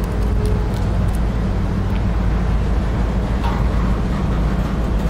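EMD GP38-2 diesel-electric locomotives with 16-cylinder two-stroke EMD 645 engines running as the local train moves slowly, a steady low engine drone. There are a few faint clicks from the train.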